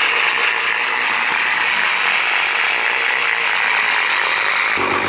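Small battery motor and plastic gears of a Barbie toy food processor running steadily under load, churning slime in its bowl. A deeper hum joins in near the end.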